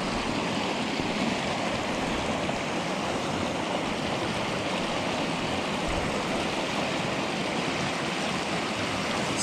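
Small river rushing over a rocky riffle close by: a steady wash of whitewater.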